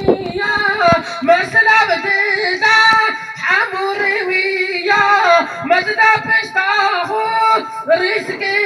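A boy singing into a microphone over a PA loudspeaker, a solo voice with long, wavering held notes.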